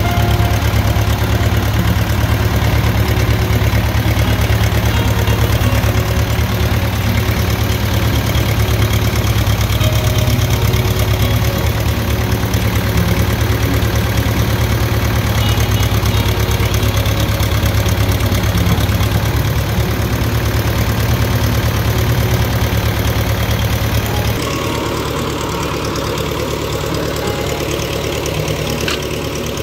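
John Deere 2120 tractor engine running steadily, heard close beside its upright muffler, a strong low thrum. About 24 seconds in it drops in level and sounds more distant.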